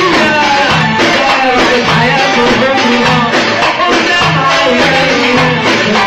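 Loud live Egyptian shaabi music with a steady beat from a band with drum kit, and a male singer performing a mawwal into a microphone.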